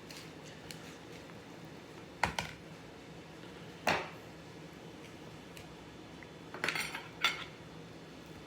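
A metal table knife clinking against a plate while cutting: a sharp clink about two seconds in, another about four seconds in, and a quick run of clinks near seven seconds.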